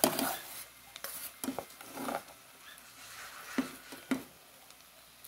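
Cooked rice being scraped out of one pot into a stainless steel pan: irregular scrapes and knocks of metal cookware and utensil, the sharpest right at the start.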